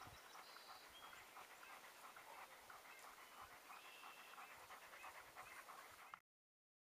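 Faint, quick panting of a dog, with a few brief high chirps over it; the sound cuts off about six seconds in.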